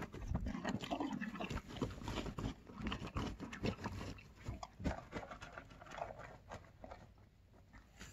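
Thoroughbred horse chewing feed: a run of irregular, crisp crunches that thin out and grow quieter near the end.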